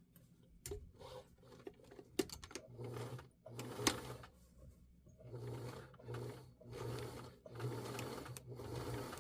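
Sewing machine stitching through the denim of a pair of jeans along the fly and waistband, running in about seven short bursts with brief pauses between them. A few clicks come before the first burst.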